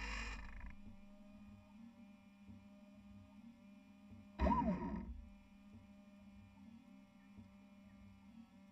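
Steady electric hum from the small motors aboard a radio-controlled rescue boat. There are two brief whirring bursts, one right at the start and one about four and a half seconds in, and in the second the pitch swoops up and down.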